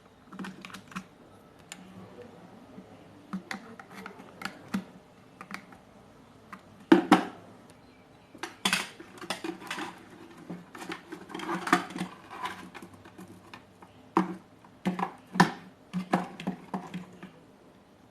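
Irregular clicks, taps and light clatter of small hard parts and tools being handled on a workbench during hands-on repair work, with the sharpest knocks around seven seconds in.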